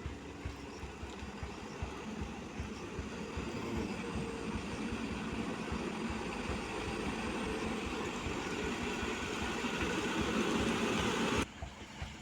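Heavy truck engine running under load, growing steadily louder, then cut off suddenly near the end.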